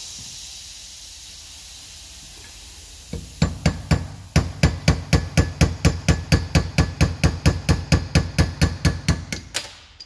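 A hammer striking a steel truck door hinge clamped in a bench vise: rapid, sharp metal-on-metal blows, about four a second, starting about three seconds in and stopping just before the end.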